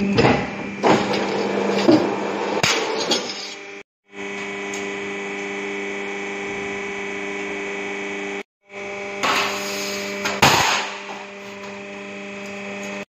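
Steady hum of a press brake's hydraulic pump motor, with sharp metal clanks and knocks as sheet steel is handled and bent, mostly in the first three seconds and again about ten seconds in. The sound cuts out abruptly twice.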